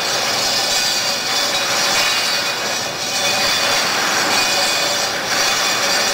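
Steady industrial machinery noise in a boatbuilding shop: a continuous loud whir and hiss carrying several steady tones, with no break or change.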